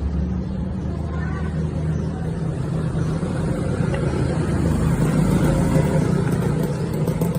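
Steady low rumbling roar of running machinery with a constant hum, unbroken throughout.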